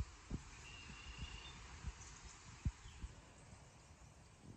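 Faint outdoor background with a few dull low thumps, about one a second, from the phone's microphone being handled.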